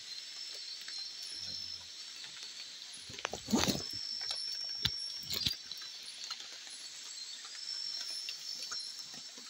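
A plastic sack holding live fish rustles and crinkles as it is handled, loudest about three and a half seconds in, followed by a couple of sharp clicks. Underneath, night forest insects keep up a steady high-pitched trilling chorus.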